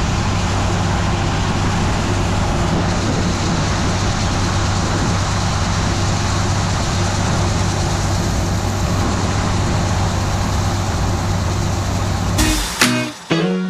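Heavy farm machinery running steadily, a constant low diesel-engine drone at a steady speed. Near the end it cuts off and guitar music starts.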